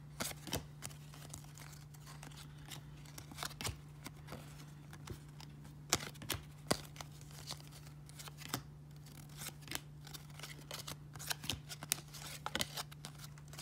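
A stack of 1994 Topps baseball cards being flipped through by hand: irregular crisp flicks and snaps as each card slides off the stack and against the others.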